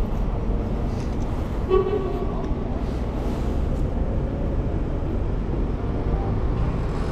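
Steady city street traffic rumble, with one short vehicle horn toot about two seconds in.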